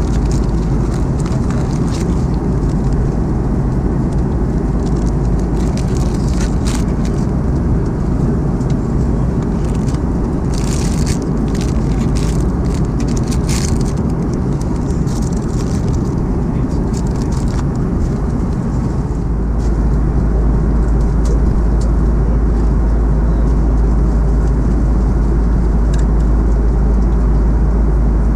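Steady low rumble of jet engines and airflow heard inside an Airbus A330-200 cabin, with scattered light rattles and clicks in the first half. The deep rumble grows louder about two-thirds of the way through.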